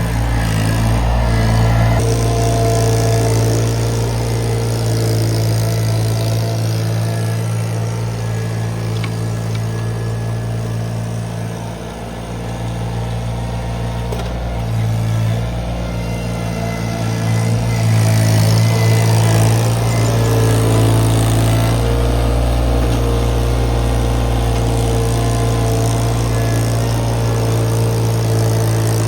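Iron Rhino IR1200 mini skid steer's engine running steadily at working speed, its pitch shifting a few times with the load. It is briefly quieter about twelve seconds in.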